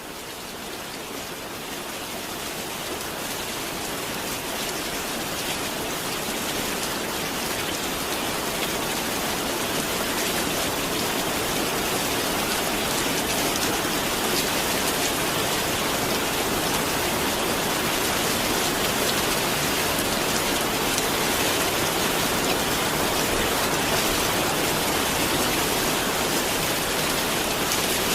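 Steady rain, a dense even hiss of countless drops, fading in gradually over the first several seconds and then holding level.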